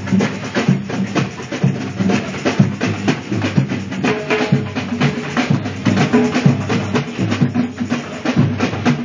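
Drummers playing a fast, driving rhythm, with many rapid drum strikes and deep pitched drum tones.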